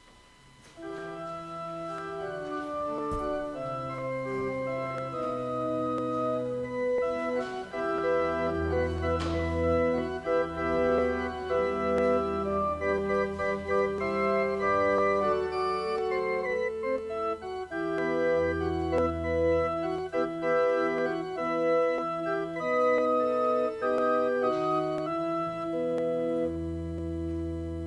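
Organ playing sustained chords, with deep pedal notes coming in three times; the music starts about a second in.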